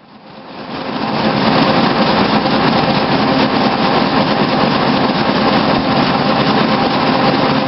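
Web offset printing press running: a steady, dense mechanical noise with a faint hum, fading in over about the first second.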